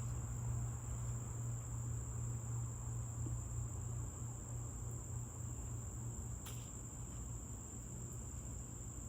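Steady high-pitched insect trill, as of crickets, over a low steady hum.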